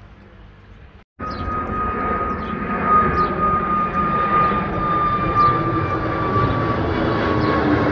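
Twin-engine jet airliner passing low overhead: a loud, steady jet roar with a high whine that sinks slowly in pitch. It starts abruptly about a second in and grows louder.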